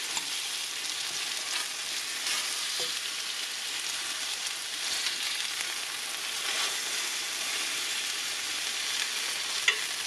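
Pork chops sizzling steadily in hot oil in a pan, freshly flipped onto their second side. A few light clicks come over the sizzle, the sharpest near the end.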